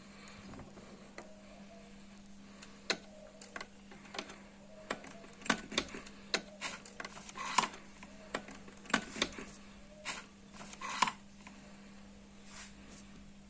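Irregular plastic clicks and knocks as a plug is handled and pushed into a wall socket, the sharpest two about halfway through and near the end. A faint steady hum runs underneath.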